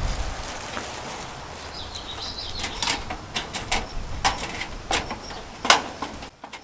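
A soffit panel being pushed up into its channel under a barn eave: a run of sharp, irregular clicks and knocks as the panel and trim are handled, the loudest near the end.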